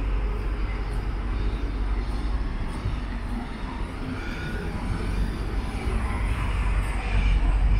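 Low rumble of passing vehicle traffic, dipping slightly midway and growing louder near the end.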